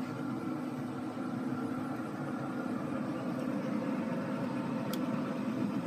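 Steady low mechanical hum of a fan or motor running, with a single sharp click about five seconds in as the tray is set down on the grill grate.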